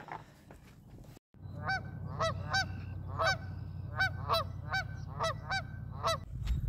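Canada geese honking: a run of about a dozen honks, two or three a second, starting about a second and a half in, over a low steady hum.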